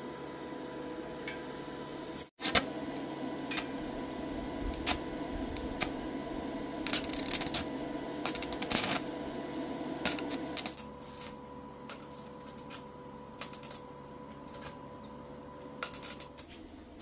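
Stick (arc) welding on a steel gate: a crackling, sizzling arc in bursts over a steady hum, dropping quieter after about ten seconds.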